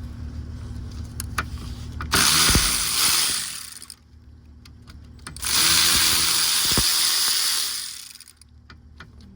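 Cordless power tool running in two bursts, the first about one and a half seconds and the second about three seconds, as it breaks loose and spins out a tight 14mm starter mounting bolt.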